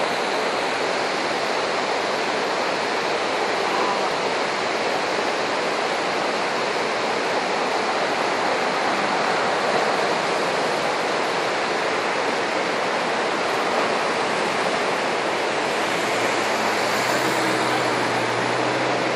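Steady rushing of flowing water, as from a nearby stream or river, with no break. A low hum joins in about three seconds before the end.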